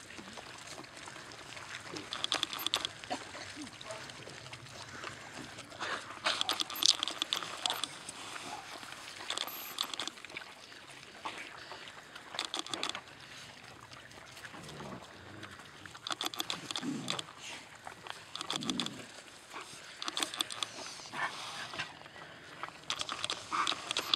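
Pack of Siberian huskies eating raw meat: irregular chewing and crunching of meat and bone, with a few short low growls about two-thirds of the way through.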